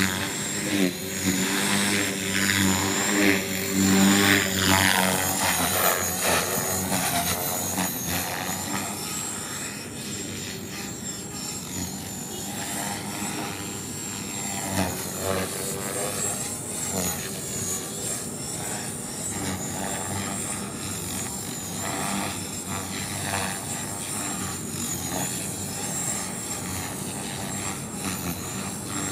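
Radio-controlled model helicopters flying, a steady high whine with a rotor buzz. It is louder for the first several seconds, then eases off.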